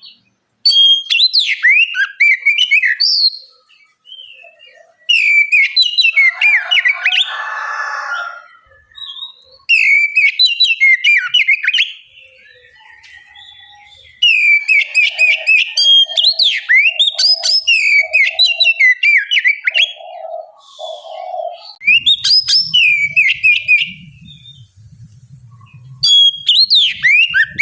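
Oriental magpie-robin (kacer) singing in loud phrases of fast, varied whistles mixed with sharp clicky notes. Each phrase lasts a few seconds, with short pauses between.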